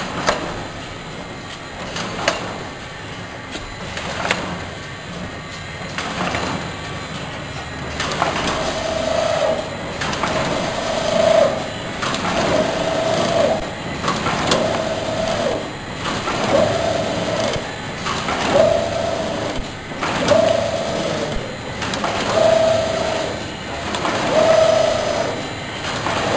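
Automatic carton packing machine for 200 g detergent cartons running through its cycle: a knock about every two seconds, and from about eight seconds in a short hum with each cycle.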